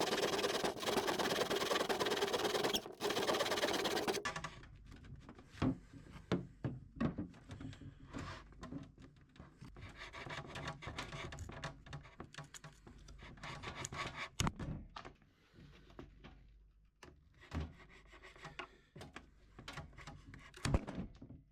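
Hand chisel work on mahogany: scattered sharp knocks and short scraping strokes as wood is pared out of a broken drawer section. Before that comes a loud, steady noise that cuts off suddenly about four seconds in.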